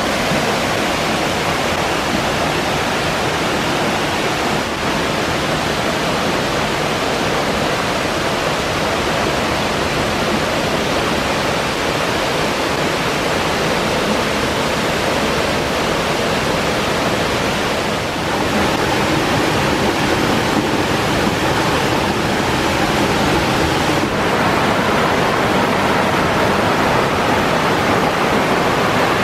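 Waterfall pouring down a rock face and cascading over mossy boulders in a creek: a loud, steady rush of falling water.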